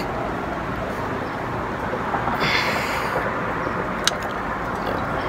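Steady background rumble, with a short hissing exhale about two and a half seconds in as a heavy spring hand gripper is squeezed at full strain, and a single sharp click about four seconds in.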